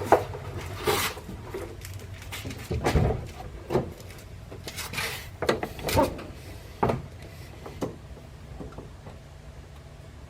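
Scattered clicks, knocks and rubbing from hands handling the metal shifter linkage and its parts, with a faint low steady hum underneath.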